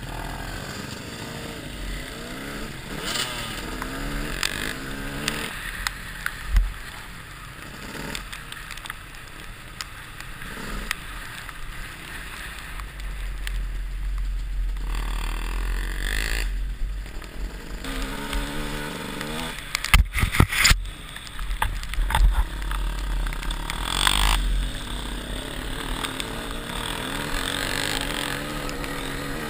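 Dirt bike engine revving up and easing off over and over as it rides a rough dirt track, with wind rumbling on the helmet-mounted microphone. A few sharp knocks come about twenty seconds in.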